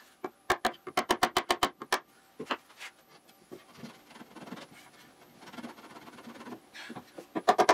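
Quick run of mallet taps, about nine in the first two seconds, knocking a wooden stretcher through the through-mortises of a bench's sides. Then quieter wood-on-wood rubbing and scraping as the stretcher is pushed and worked through by hand.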